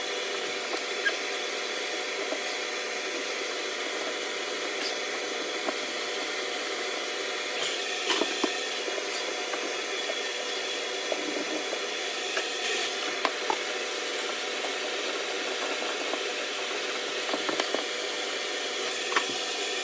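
A steady machine-like hum and hiss, with scattered light clicks and knocks as the plastic sink drain trap and its fittings are handled.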